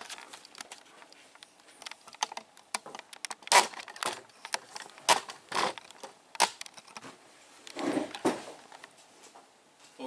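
Handling noise from a camera being adjusted and reframed: scattered clicks, taps and light knocks, a few louder ones in the middle and a short cluster of dull thuds near the end.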